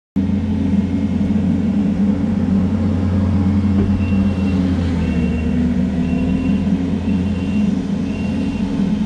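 Kubota SVL65 compact track loader's diesel engine running steadily, with a high backup alarm beeping five times, about one beep a second, from around four seconds in.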